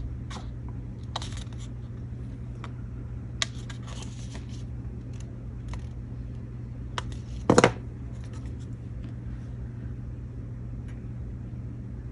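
Paper and a plastic lamination sheet handled while glue is run along the edges of a card cutout: scattered light clicks and scuffs, with one louder knock about seven and a half seconds in, over a steady low hum.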